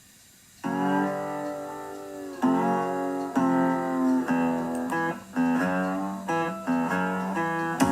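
Guitar music: chords that ring on and change every second or so, coming in after a short moment of near silence.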